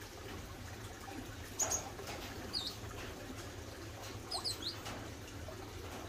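Small aviary finches giving a few short, high chirps: one about a second and a half in, another a second later, then a quick cluster of three or four about four seconds in.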